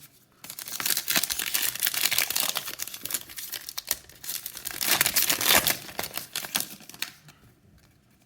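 Foil wrapper of a trading card pack crinkling and tearing as it is pulled open by hand: a dense crackle that starts about half a second in, is loudest about two and five seconds in, and dies away near the end.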